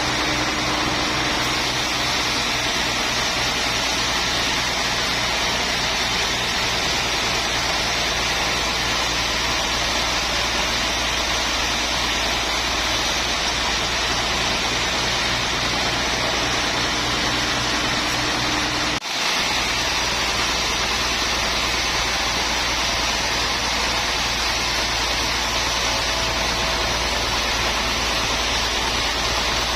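Sawmill machinery running steadily, a constant machine hum under a wide, even hiss, with a brief dropout about two-thirds of the way through.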